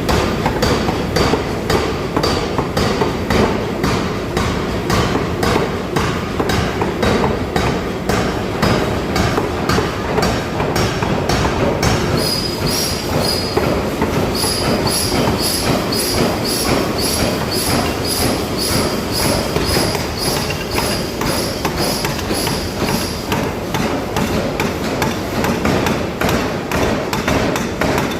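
Forging hammer striking metal in a steady rhythm, about three blows a second, during ring forging. Through the middle stretch each blow rings with a high metallic tone.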